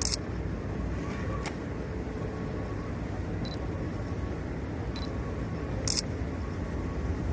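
Several short camera shutter clicks, about six, scattered over a steady low rumble. Some of the clicks carry a brief high electronic tone, like a phone camera's shutter sound.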